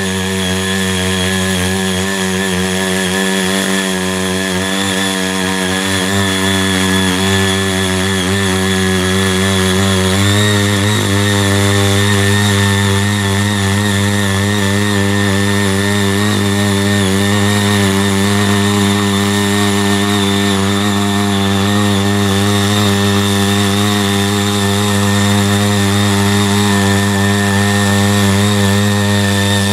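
Small engine of a CY80 mini power tiller running steadily under load while its six rotary tines churn through the soil. The engine note steps up and gets a little louder about ten seconds in.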